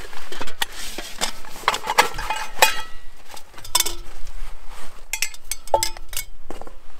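Stainless steel camp cookware clinking and rattling as it is unpacked from a nylon stuff sack and set down: a series of metal knocks, several ringing on briefly, with fabric rustling in the first couple of seconds.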